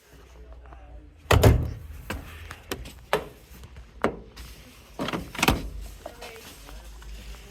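Several separate knocks and thuds from a washing machine being handled, the loudest about a second and a half in.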